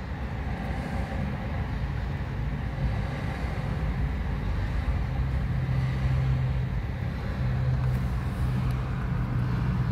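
Steady low drone of a running engine, a held low hum over a rumble, a little stronger from about halfway through.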